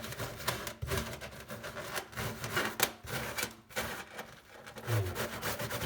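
Irregular rubbing and scraping with a few short knocks: gloved hands working small rusty bolts in a sink during cleaning.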